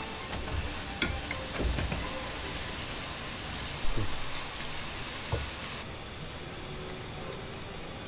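Stovetop cooking on a gas range: water boiling and hissing in a pan and pot of instant ramen noodles, with a few clicks of cookware and a sharp knock about four seconds in. The high hiss drops away about six seconds in.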